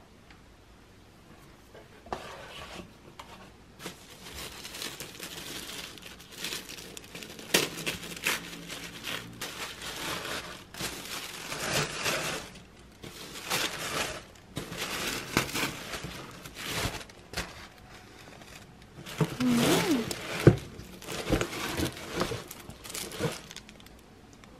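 Tissue paper crinkling and rustling as a boxed handbag is unwrapped from its packing paper and dust bag, in irregular spells that start about two seconds in and die away just before the end.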